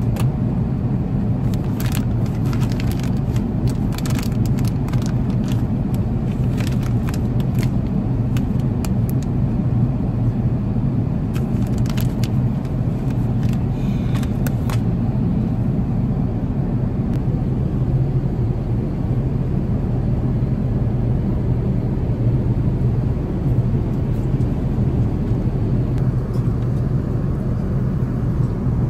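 Airbus A380 cabin noise in flight: a steady low roar of engines and airflow. A few faint clicks in the first half.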